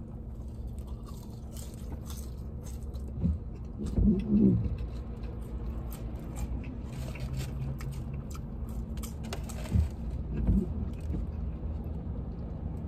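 A person eating French fries, with quiet chewing and handling sounds and a few short louder mouth or handling noises about four seconds in and again near ten seconds, over a steady low hum inside a car.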